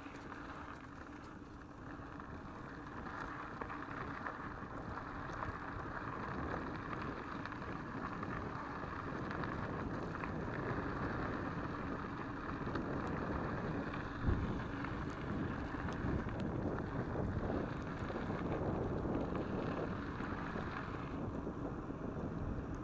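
Mountain bike riding along a gravel path: a steady rumble of tyres on gravel with wind on the microphone, and a single knock from a bump about two-thirds of the way through. Near the end the hiss thins as the tyres reach smooth asphalt.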